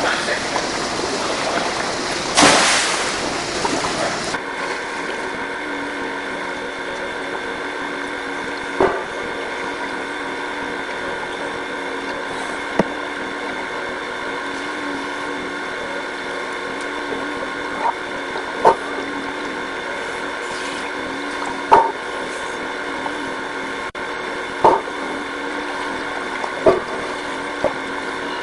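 Splashing and sloshing water, loudest about two and a half seconds in, gives way after about four seconds to the muffled sound of a swimming pool heard from under the water: a steady hum with scattered sharp clicks every few seconds.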